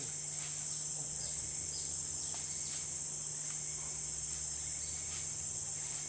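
A steady, high-pitched insect chorus, with a few short falling chirps over it and a low steady hum underneath.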